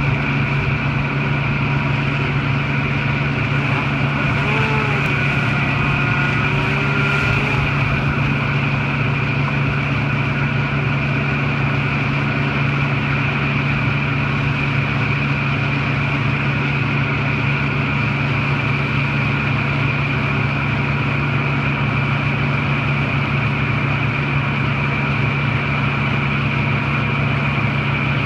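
An engine running steadily at constant speed: a low, even drone with a higher steady whine above it. Around five to eight seconds in, a fainter sound rises and falls in pitch a few times.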